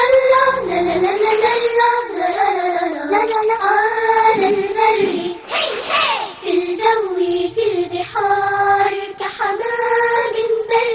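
Children's voices singing the Arabic opening theme song of a cartoon: a flowing melody with long held, gliding notes.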